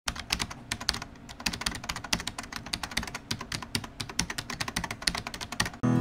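Rapid, irregular clicking of computer keyboard typing, a sound effect over an intro title. Just before the end it gives way to acoustic guitar music.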